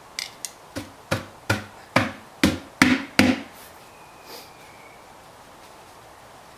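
A quick run of about nine sharp knocks, roughly three a second and mostly growing louder, that stops a little past three seconds in. A flat-blade screwdriver is braced and knocked against the internal beadlock ring to force it in under the tire's bead.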